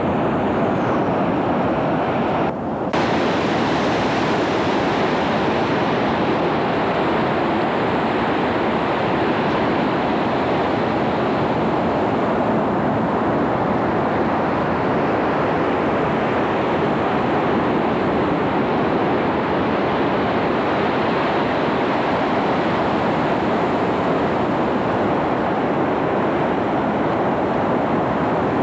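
Ocean surf breaking on a beach, a steady, even rush of noise with wind on the microphone. The whole sound drops out briefly about two and a half seconds in.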